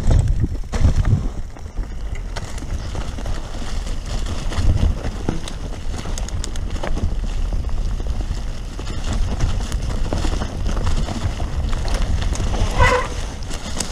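Mountain bike riding fast down a dirt and leaf-covered singletrack: a steady rush of wind buffeting the camera's microphone, with the tyres rolling and the bike rattling and clicking over the bumps. A brief pitched sound comes near the end.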